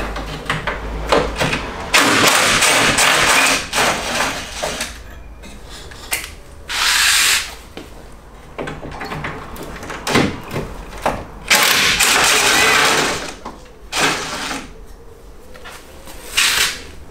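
A power tool runs in about four separate bursts, each up to a few seconds long, as 8 mm bolts holding a car's front valance are undone. Metal clicks and knocks from the work come between the bursts.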